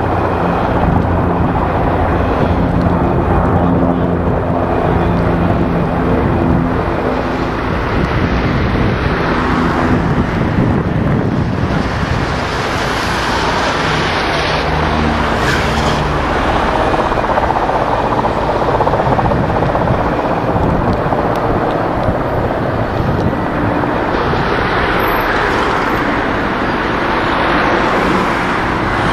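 Steady engine drone of a Canadair CL-415 water-bombing plane's twin turboprops, with a low pitched hum in roughly the first ten seconds, over a constant outdoor rush of noise.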